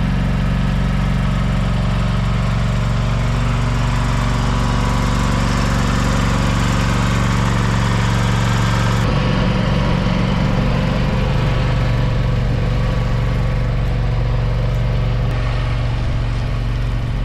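John Deere X570 garden tractor engine running steadily while plowing snow, its pitch wavering briefly about nine seconds in.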